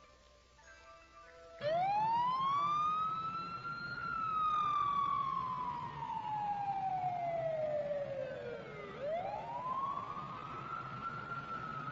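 Siren wailing, starting suddenly about a second and a half in: one slow rise, a long fall, then a second rise and the start of another fall near the end.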